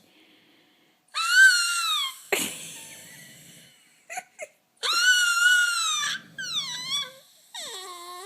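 A man snoring with high-pitched whistling wheezes, each about a second long. A rasping snort comes at about two seconds in, and the cycle repeats roughly every three and a half seconds. Shorter falling whistles come near the end.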